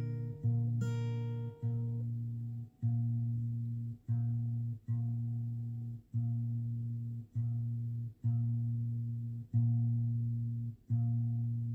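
Guitar music: a low note or chord picked over and over, about once a second, each one ringing and fading before the next.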